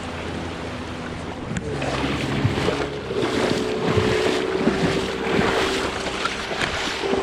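Mini jet boat's 1053cc Yamaha four-stroke engine running under power, with water rushing and splashing and wind on the microphone. The engine note steps up and holds higher from about three seconds in as the boat works to get back on step.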